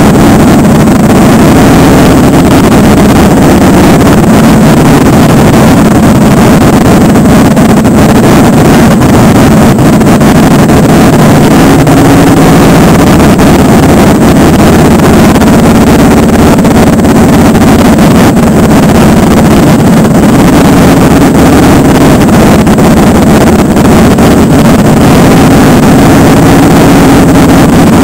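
Motorcycle engines running steadily at low speed in a slow convoy, very loud, with wind noise on the microphone.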